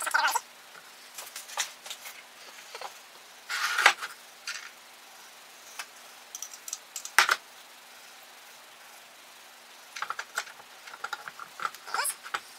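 Scattered metallic clicks, clinks and knocks as the rotor and housing of an old washing-machine AC shunt motor are handled and fitted together on a workbench, with small loose nuts and bolts rattling. The two loudest knocks come about 4 and 7 seconds in, and a run of lighter clicks comes near the end.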